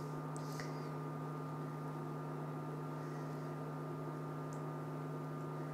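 Induction hob running under a pan: a steady electrical hum with an even fan-like hiss beneath it.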